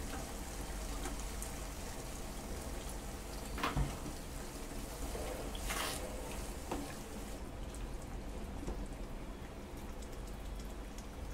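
Keema simmering in a pan of added water, a steady bubbling and spluttering, while a wooden spatula stirs it and scrapes the pan twice, about four and six seconds in.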